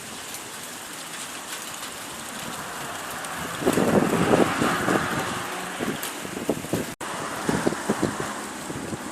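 Strong gusting wind thrashing the leaves and branches of lime trees, with wind buffeting the microphone, loudest in a gust about halfway through and again near the end. The sound drops out for an instant about seven seconds in.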